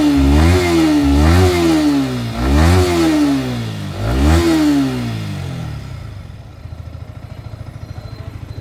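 Yamaha R15M BS6 155 cc single-cylinder engine revved in four quick throttle blips, then settling to a steady idle about six seconds in. It runs with a newly fitted timing chain, the repair for its engine noise problem, and the mechanic calls the bike OK now.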